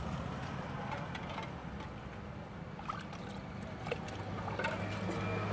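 Steady low street hum with a few light clicks and a faint trickle of liquid as a puri is dipped into a clay pot of green spiced pani.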